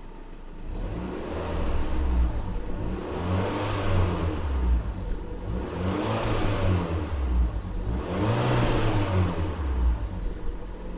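Fiat Punto 188 engine revved up and down several times, the pitch climbing and dropping back each time. The engine is misfiring.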